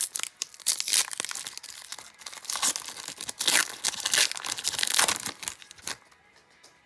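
Plastic foil wrapper of an Upper Deck hockey card pack being crinkled and torn open by hand, with several sharp louder crackles. It stops about six seconds in, as the cards come out.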